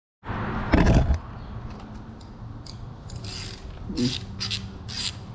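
Hand ratchet wrench clicking in a steady run of sharp clicks, about two to three a second, from about three seconds in, as it threads the bolt that pulls a camber-kit insert together in a strut top mount. A little under a second in there is one loud thump of handling.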